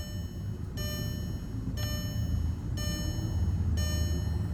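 A car's dashboard warning chime repeating about once a second, each tone held for most of the second, over a low steady hum.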